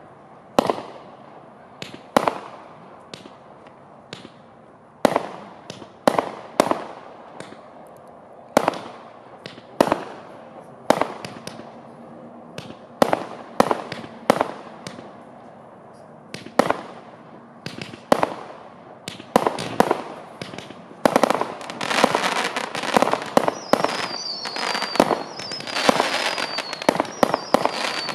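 A Klasek 'Fireworks Show 192' cake, 192 shots of 20 mm, firing: sharp single shots about once a second, turning at about twenty seconds into a dense, rapid run of overlapping shots with a few short falling whistles near the end.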